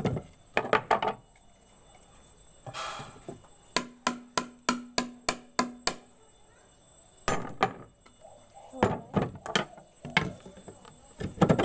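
A hollow bamboo tube is knocked repeatedly with a wooden stick: a run of sharp knocks, about four a second for two seconds, with a low ringing note from the tube. A single scrape comes before it, and further scattered knocks follow.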